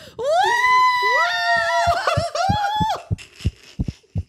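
A high, drawn-out vocal whoop that slides up in pitch, holds, then steps down and back up for about three seconds, followed by a few soft low knocks.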